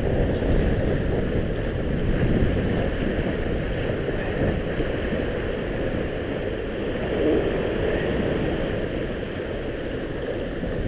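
Wind buffeting the microphone as a steady low rumble, over sea waves washing against shore rocks.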